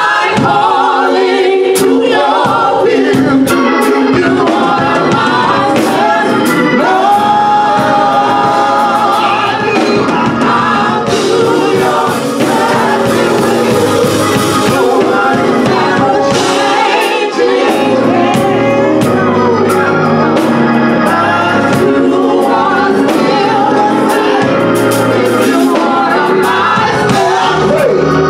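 Live gospel music: singing over a band of organ, drums with cymbals, and electric keyboard.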